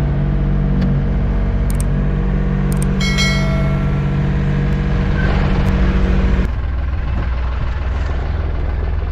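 Fishing boat's engine running steadily at sea, a constant droning hum, with a brief high ringing tone about three seconds in. Partway through the sound changes abruptly to a lower, duller engine drone.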